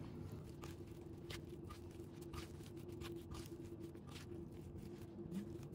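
Plastic spatula stirring raw sliced vegetables and peanut sauce in a stone mortar: faint, irregular scrapes and soft clicks against the stone, over a steady low hum.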